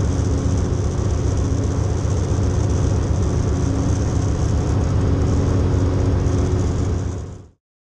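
Cabin noise of a de Havilland DHC-2 Beaver in flight: its Pratt & Whitney R-985 radial engine and propeller running steadily with a fast, even pulsing. The sound fades out quickly near the end.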